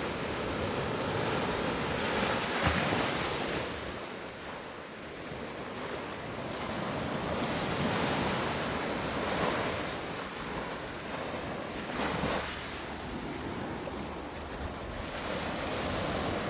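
Sea waves washing onto the shore, the surf swelling and ebbing every few seconds, with wind on the microphone. Two short sharp sounds come through the surf, one about three seconds in and one about twelve seconds in.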